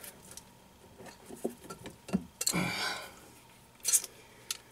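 Scattered small clicks and knocks of hand tools and metal fittings being handled, with a short rustling swell about two and a half seconds in.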